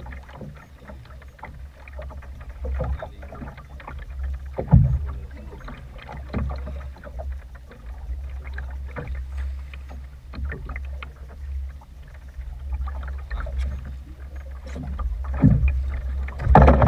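Wind rumbling on the microphone and choppy waves slapping a small boat's hull, with scattered knocks; the loudest knock comes about five seconds in.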